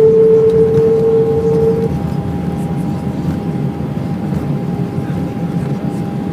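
Airliner cabin noise during landing: jet engines whining over a steady low rumble. The loud whine stops about two seconds in and the noise eases as the engines spool down, leaving a fainter higher tone.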